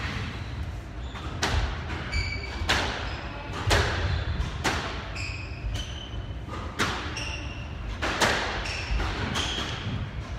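Squash ball being struck and hitting the court walls again and again in an echoing hall, with short sneaker squeaks on the wooden floor between the hits.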